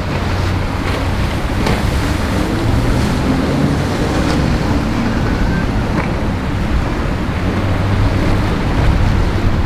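Outboard motor of a rigid inflatable boat running steadily through choppy water, over the wash of waves and wind noise on the microphone.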